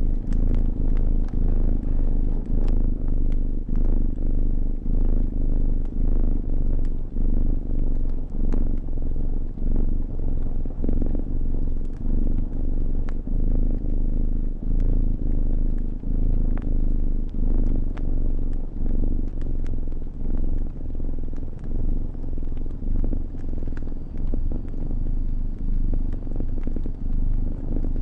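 Cat purring close up, a low rumble that swells and fades about once a second with each breath in and out. Over it come the scattered sharp snaps and pops of a crackling fire.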